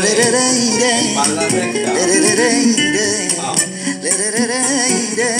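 Background music: a Latin-style Spanish-language song playing, with a wavering melody over steady accompaniment and no sung words.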